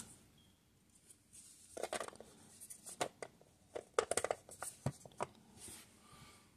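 Light plastic clicks and rubbing from handling a coin capsule and its holder and a plastic egg-shaped case. The clicks are scattered, with the sharpest ones between about two and five seconds in.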